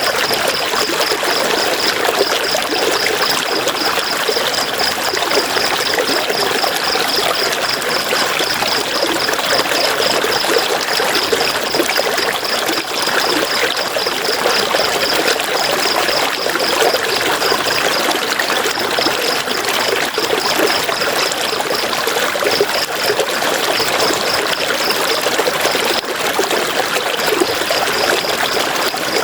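River water rushing and splashing over rocks in a steady, even stream. A high, fast, evenly pulsing chirp runs above it and breaks off a few times in the second half.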